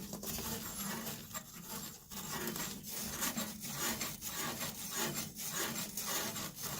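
Heavy-duty dish sponge scrubbing back and forth along a furnace flame sensor's metal rod, a steady series of rasping strokes, working dirt and residue off the sensor that kept the furnace from lighting.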